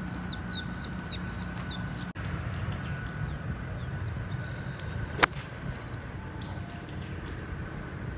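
A 9-iron striking a golf ball on a full swing: one sharp, crisp click a little past halfway. Birds chirp in quick falling notes in the first second.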